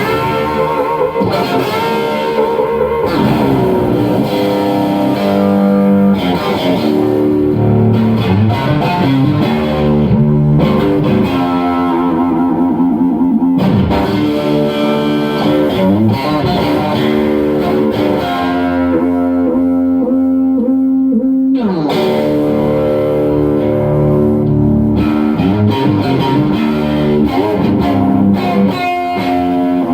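Electric guitar played through a Santa Cruz Sound tube amp, a Dumble-style head: continuous lead phrases of held notes with several slides in pitch.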